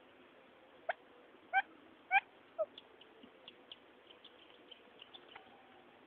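Quail calling: four short, sharp call notes about half a second apart in the first few seconds, then a run of faint, quick high chirps and one longer note near the end.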